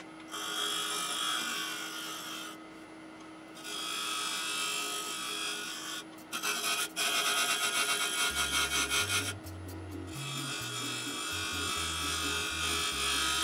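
Turning tool cutting the outside of a spinning Kentucky coffee tree bowl on a wood lathe: a hissy scraping in several passes with short pauses between them. Background music with a low bass line comes in about eight seconds in.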